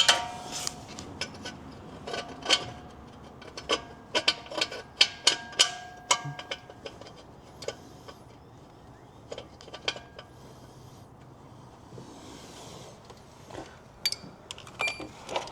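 Metal hand tools clinking and clattering as they are handled and picked through. Many sharp clicks, some ringing briefly, come thick in the first half and sparser later.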